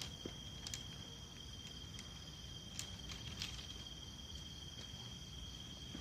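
Steady, high-pitched chorus of night insects, crickets, with a few short clicks and knocks scattered through it.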